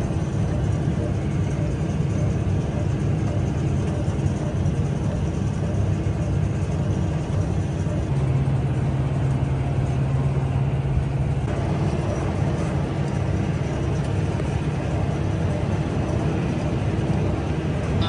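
Massey Ferguson 5S.145 tractor and Massey Ferguson 1842S small square baler running steadily while baling hay, heard from inside the tractor cab. A steady low drone stands out for a few seconds around the middle.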